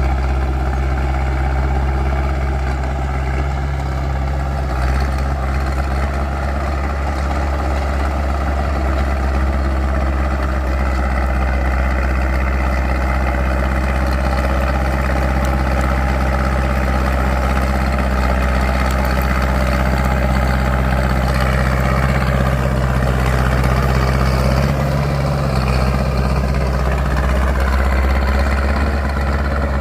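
Diesel engine of a Caterpillar D3C crawler bulldozer running steadily, with a brief change in its note about 25 seconds in.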